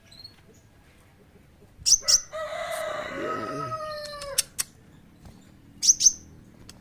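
A rooster crowing once, a long call of about two and a half seconds that falls slightly at its end, with short sharp songbird chirps around it.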